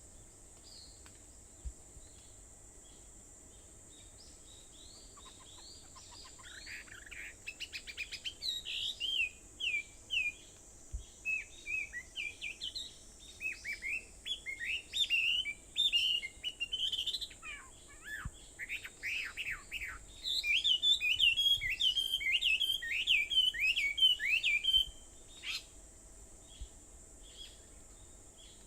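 Wild songbirds chirping and singing in fast runs of short, sweeping notes. The song starts about six seconds in, grows louder near the end and stops a few seconds before the end.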